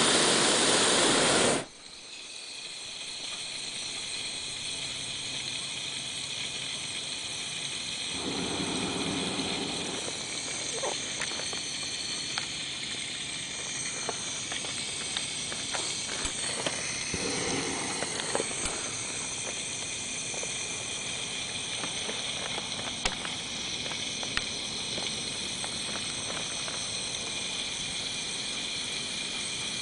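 Hot air balloon's propane burner firing with a loud, even roar that cuts off suddenly about a second and a half in. A quiet steady hiss with faint high tones follows, with scattered small clicks.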